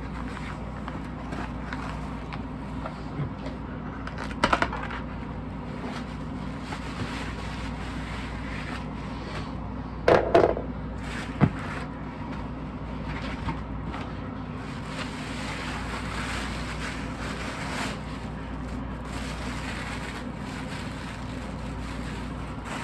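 A cardboard record mailer being cut open along its taped edge and handled, then a thin plastic grocery bag crinkling as a vinyl LP is unwrapped from it. A few louder knocks stand out, over a steady low hum.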